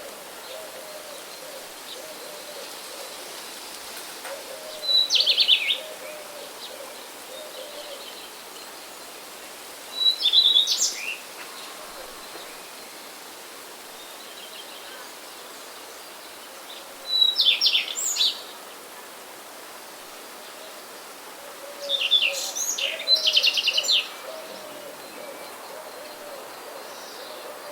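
A songbird sings short, bright phrases four times, roughly every five to six seconds, over a steady hiss of wind and rain. A soft, low call of repeated notes runs in the background early on and again near the end.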